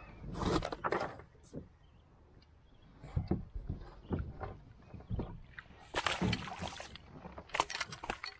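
A small hooked northern pike thrashing and splashing at the surface as a landing net scoops it out of the water, in a run of irregular splashes and sharp knocks.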